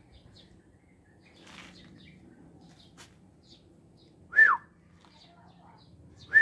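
A bird calling close by: two loud, short whistled notes, each sliding downward, about two seconds apart, with faint chirps of small birds in the background.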